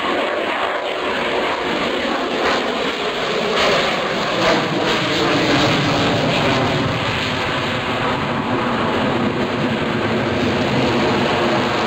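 F-22 Raptor's twin jet engines (Pratt & Whitney F119 turbofans) giving a loud, steady jet noise. The low rumble builds over the first couple of seconds, and there is crackling about three to five seconds in.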